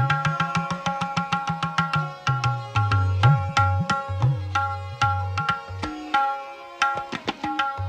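Tabla playing: a fast run of ringing strokes on the tuned right-hand drum over deep left-hand bass-drum strokes that swell and bend upward in pitch. There is a brief lighter, quieter passage about six seconds in.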